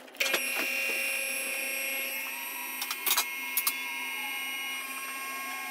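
QuickJack portable car lift's electric hydraulic pump running with a steady whine as it raises the car. The lift's safety locks click a few times about three seconds in.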